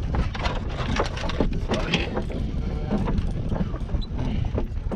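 Sound on the deck of a fishing boat at sea: a steady low rumble with many small clicks and knocks scattered through it.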